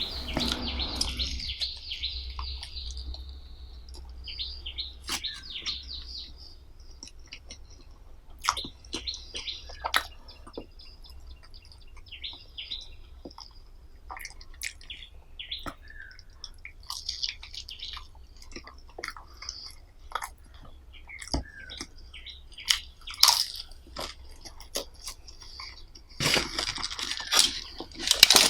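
Close-miked eating: chewing with wet mouth smacks and clicks, denser at the start and again near the end.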